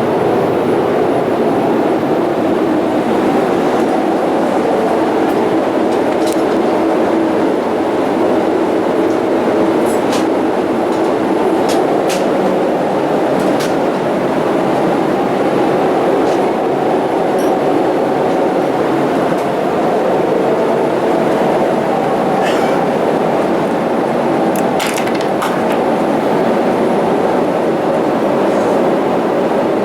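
Steady rumble of an airliner cabin aboard a Boeing 787-8: engine and airflow noise at an even level, with a few faint clicks.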